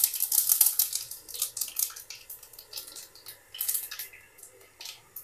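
Fennel seeds crackling and popping in hot oil as they temper. The pops come thick and fast for the first couple of seconds, then thin out to scattered crackles.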